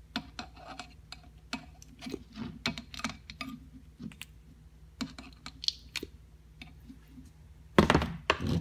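Scattered small clicks and ticks of a metal ratchet head being handled as grease is packed into it by hand. About eight seconds in comes a louder, noisier rustle and clatter of the ratchet being moved.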